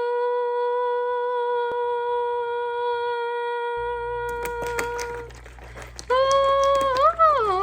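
A steady, humming sci-fi sound-effect tone held on one pitch, which stops about five seconds in as a low hum and a run of clicks come in. A second humming tone then starts, wavers, and bends down in pitch near the end.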